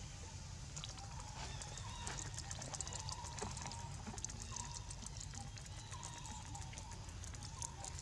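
Outdoor ambience: a steady low rumble with short, faint chirps recurring every half second or so, and from about two seconds in a fast patter of thin, dry clicks.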